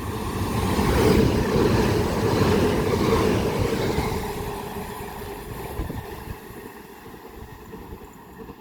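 Class 377 Electrostar electric multiple unit passing through without stopping. The running noise of wheels on rail builds to a peak about a second in, then fades away over the next several seconds.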